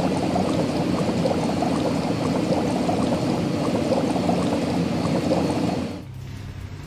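Water pouring and bubbling in a steady rush, with small gurgling pops, cutting off sharply about six seconds in.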